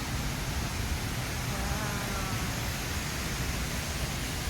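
Steady rushing noise, strongest in the low end, with a faint voice in the background about two seconds in.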